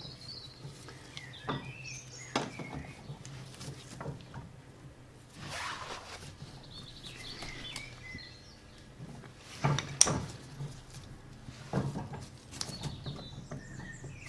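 Scattered metallic clicks and knocks of a socket wrench tightening the nut on a lawn tractor's front wheel axle, the sharpest about ten seconds in. Birds chirp in the background.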